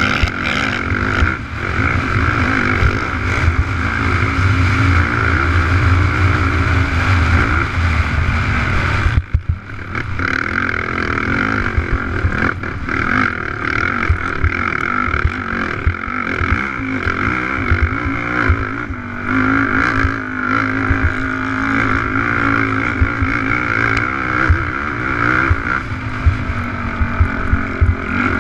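Race quad's engine running hard under throttle, heard from on board the ATV, with the pitch rising and falling as the rider works the throttle. The sound cuts out briefly about nine seconds in, then picks up again.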